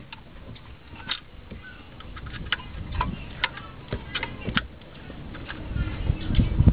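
Light, irregular metallic clicks and taps as the EGR valve bracket is fitted by hand against the EGR valve and intake plenum of a Nissan VG33E V6.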